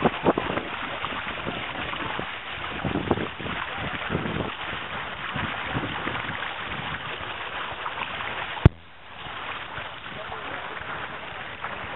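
Wind buffeting the microphone and water rushing along the hulls of a Richard Woods Surfsong catamaran sailing under way, gusty in the first few seconds. A single sharp click comes about nine seconds in, and the noise is quieter after it.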